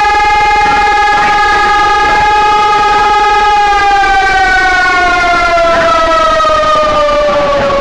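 Civil defense siren sounding a steady tone. About three and a half seconds in, its pitch begins to fall slowly.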